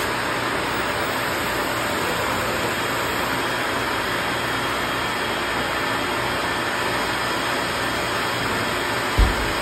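MultiCam 3000 CNC router running with its vacuum hold-down table, a steady even mechanical noise with a low hum underneath. A single brief low thump near the end.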